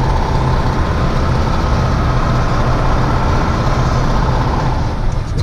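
KAMAZ grain truck's diesel engine running steadily under load, with road and tyre noise, heard from inside the cab while driving.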